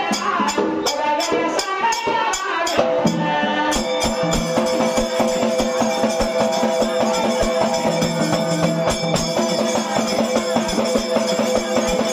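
Dhangar ovi folk singing: a group of men sing in chorus to a large dhol and fast, dense jingling percussion. About three seconds in, the voices settle into long held notes over the steady beat.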